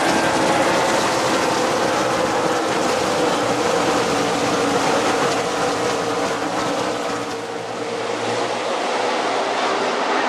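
A field of NASCAR stock cars racing around the track, their V8 engines a loud, continuous wall of engine noise that eases slightly about seven seconds in and then builds again.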